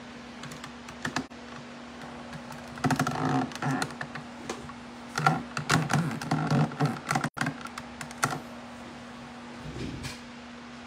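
Handling noise: two bursts of quick light clicks and knocks, about three and five seconds in, with a few single ticks around them, over a steady low hum.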